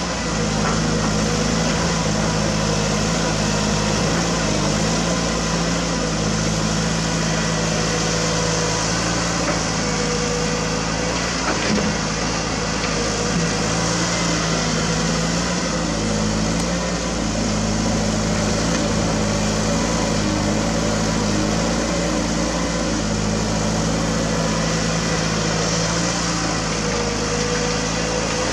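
CAT 320D2 GC hydraulic excavator's diesel engine running steadily while it digs and loads dirt, its note shifting slightly as the hydraulics take load.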